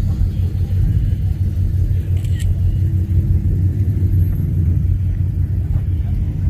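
Car engine idling: a steady low rumble.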